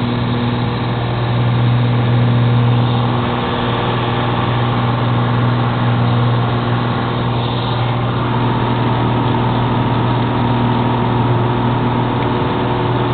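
Single-engine propeller airplane's piston engine and propeller droning steadily, heard from inside the cabin as a deep constant hum over a steady rush.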